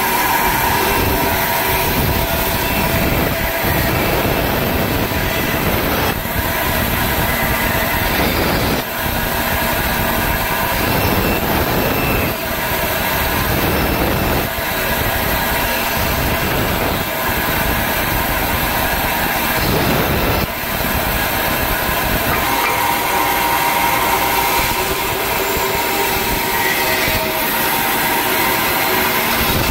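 Band saw running and cutting thin wooden spoon blanks: a steady, loud machine noise with the blade's cut through the wood, dipping briefly a few times as one cut ends and the next begins.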